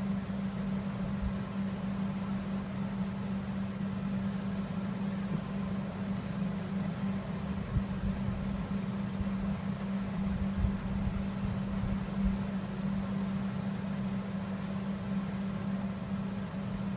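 A steady low electrical hum over a constant background noise, like a running appliance or fan.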